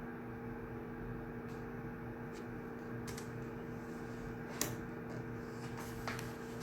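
Steady room hum of a quiet shared study room, likely ventilation or air conditioning, with a few small scattered clicks and taps; the sharpest click comes about two-thirds of the way through.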